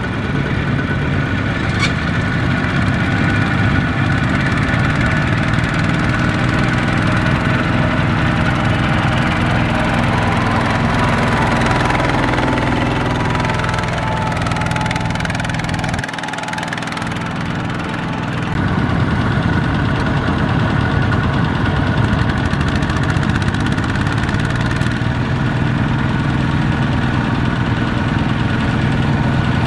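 Single-cylinder diesel engines of two-wheel walking tractors running with a fast, even beat while pulling trailers loaded with rice sacks. The sound drops to a quieter stretch a little past halfway, then picks up again.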